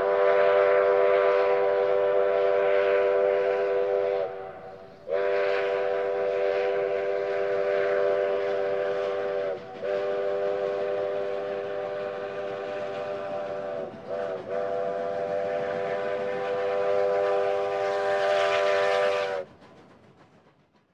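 Steam whistle of McCloud River Railroad locomotive #19 blowing long blasts, a chord of several tones sounding together. There are short breaks about 4.5, 10 and 14 seconds in, and the pitch sags slightly as each blast closes off. The last blast cuts off about 19 seconds in.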